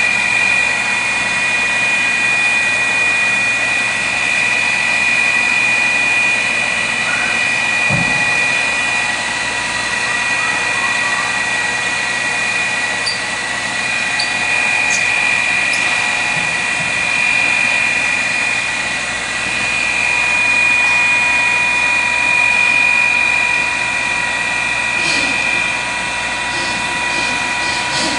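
Millport Model 618 surface grinder running, its 1 HP spindle motor and 7-inch wheel giving a steady high whine, with a brief low thump about a third of the way through.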